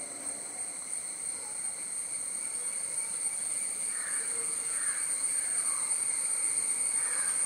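Steady, high-pitched insect chorus of cicadas or crickets. In the second half a run of about four short falling calls comes, roughly a second apart.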